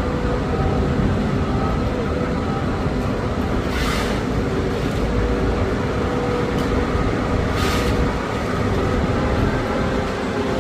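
Engine-driven machinery running steadily, with two short hissing rushes about four and seven and a half seconds in.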